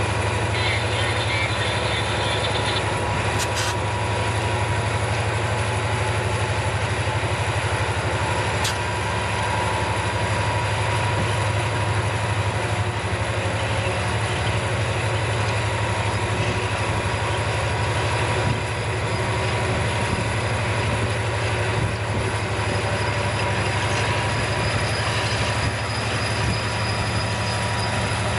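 A train rolling past on the rails: a steady, loud run of railcar noise with no break.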